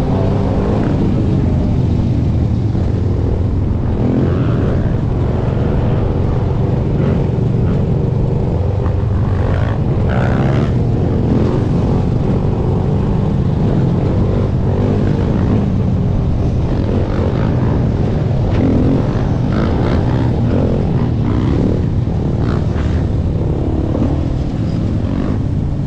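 Sport quad (ATV) engine running under way, its pitch rising and falling as the throttle is worked, with the engines of other dirt bikes and quads riding alongside in the mix.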